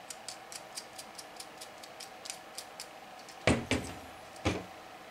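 Quick light clicking, about four to five ticks a second, while the small screws holding the end stop switch to the 3D-printed motor end are fastened. After that come three knocks as the plastic motor-end assembly with its stepper motor is set down on a table.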